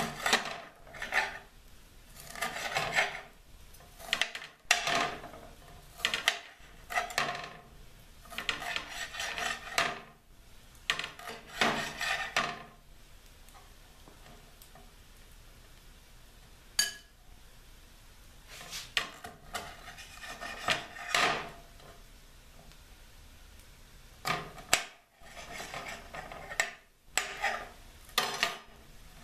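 A dull chef's knife slicing a green bell pepper on a glass cutting board: repeated scraping strokes in irregular bunches, with a pause of several seconds about halfway through.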